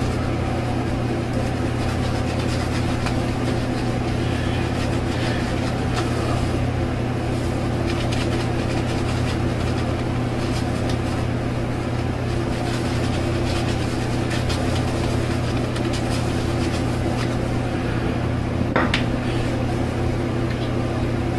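Shaving brush working lather over a bald scalp, a faint irregular scrubbing, over a steady low mechanical hum.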